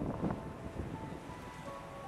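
Distant hum of a Saab 340B's turboprops on approach, heard as a few faint steady tones. Wind buffets the microphone at the start, then eases.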